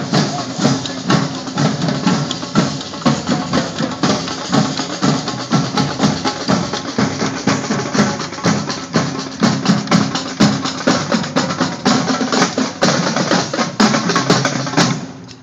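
Marching drumline of snare drums and bass drums playing together in dense, rapid strokes, cutting off suddenly near the end.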